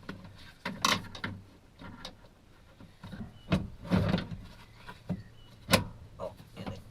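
A few sharp clicks and knocks of hard plastic and metal parts being worked loose from a BMW X5 door's handle and locking mechanism. The loudest knocks come about a second in and again near the end, with a cluster of smaller knocks between.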